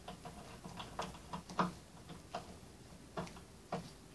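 Light, irregular clicks and taps of wires being handled and pushed into a plastic terminal block on a wooden baseboard, about eight in all, the loudest about a second and a half in.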